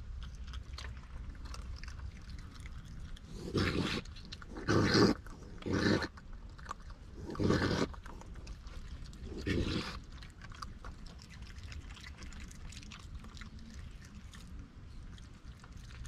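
Raccoons chewing and crunching food right at the microphone, with five short, harsh snarls between about three and ten seconds in as two of them contest the same pile.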